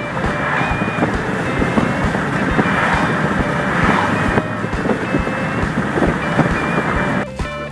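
Wind rushing past an open car window at highway speed, mixed with road noise from the moving car. The rush cuts off suddenly near the end, leaving background music.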